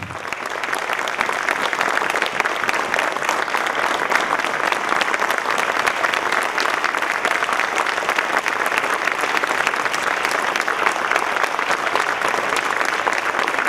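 Audience applauding: dense, steady clapping that starts suddenly and keeps up without a break.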